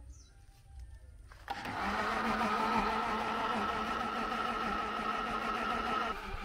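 Electric blender switched on about a second and a half in and running steadily with a motor whine, grinding soaked rice into a paste for rice fufu.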